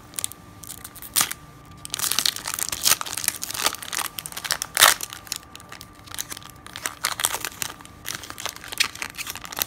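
Foil wrapper of a 1998 Bowman Chrome trading card pack crinkling and tearing as it is pulled open by hand, in irregular crackles and rips. The loudest rip comes about five seconds in.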